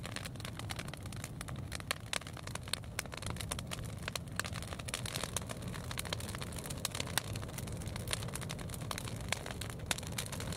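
Fire crackling with many irregular sharp pops, over a steady low rumble, as it heats a clay-sealed drum in a juniper-oil kiln.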